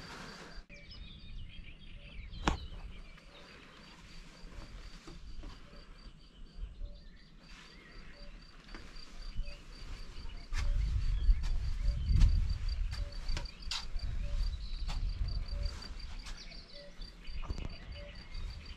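Outdoor ambience: a faint, evenly repeating high-pitched chirp with scattered clicks, and a low rumble that swells for a few seconds about ten seconds in.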